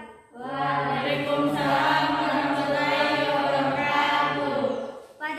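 Voices chanting together in one long, sustained phrase held for about four and a half seconds, the pitch steady with a slight waver.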